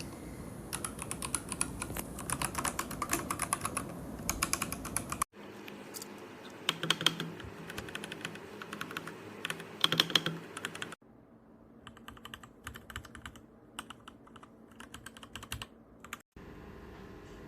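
Typing on a Royal Kludge RK R87 mechanical keyboard: rapid runs of key clicks in three clips joined by abrupt cuts, the third quieter than the first two.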